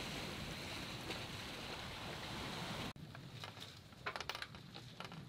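Water and wind rushing past a Pearson 35 sailboat under sail, a steady noise. About three seconds in it cuts to a quieter stretch with scattered clicks and taps.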